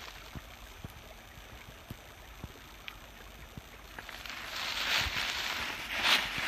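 Footsteps and rustling through dry leaves and undergrowth: faint at first with a few small snaps and ticks, then louder brushing over the last couple of seconds.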